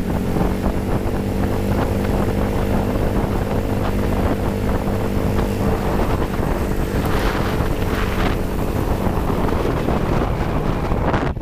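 GY6-engined Honda Ruckus scooter underway at a steady cruise: a steady engine drone under wind rushing over the microphone. Near the end the engine note fades into the wind noise.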